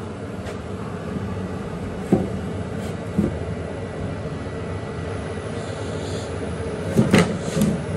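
Okamoto ACC-818NC surface grinder running with its wheel spinning and coolant spraying inside the closed guard: a steady mechanical whir, with a couple of faint knocks and a few short, louder bursts near the end.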